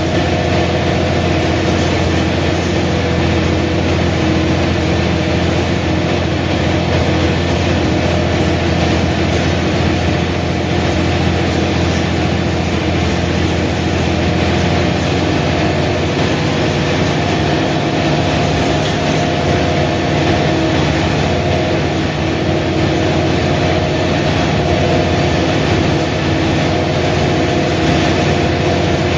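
Mercedes-Benz O345 Türk city bus running, its diesel engine humming steadily under a rumble of running noise; the engine note shifts a little about halfway through.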